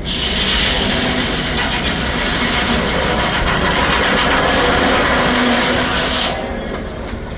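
Steam-driven Frick circular sawmill blade cutting through a log: a loud, harsh sawing noise starts at once, holds for about six seconds and stops abruptly as the cut ends, over the low steady running of the mill.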